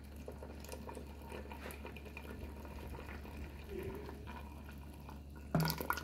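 Thick blended guava, pineapple and mango juice pouring in a steady stream into a stainless steel pot, with a short knock near the end as the pour stops.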